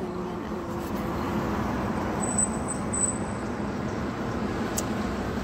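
Steady road traffic noise from cars passing on a multi-lane road.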